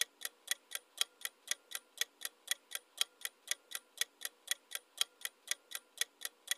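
Clock-ticking sound effect of a countdown timer, steady sharp ticks about four a second, marking the time left to answer.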